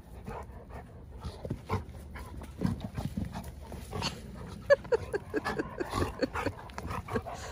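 Great Dane puppy and Golden Retriever play-wrestling: an irregular run of snorts and grunting play noises, with a few short higher-pitched whines about five seconds in.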